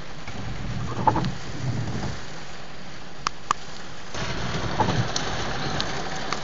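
Steady rush of heavy rain and floodwater. It swells a little twice, and a few sharp ticks come partway through, like hard drops striking glass.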